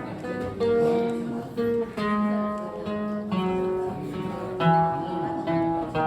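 Acoustic guitar playing an instrumental passage without singing, single notes plucked one after another about every half second to second.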